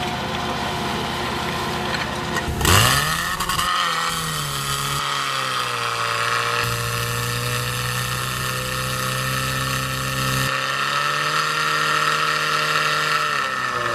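Portable fire pump engine running, revved up sharply about two and a half seconds in and then held at high revs while it pumps water out through the attack hoses, its pitch shifting a few times and dropping near the end.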